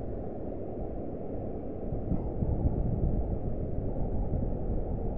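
Wind buffeting the microphone, a low rumbling noise that grows stronger and gustier about two seconds in.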